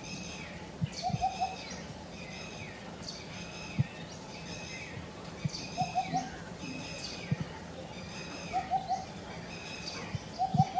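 Birds calling over and over: a call with a falling note repeats about every second and a half, and short runs of three quick lower notes come in several times, over a few soft low knocks.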